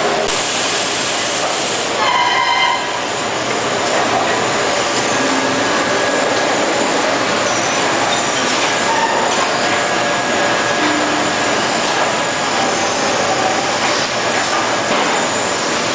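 Running machinery on a CRT television production line, including an overhead chain conveyor: a loud, steady clatter and hiss with scattered short squeaks. A brief whistle-like tone sounds about two seconds in.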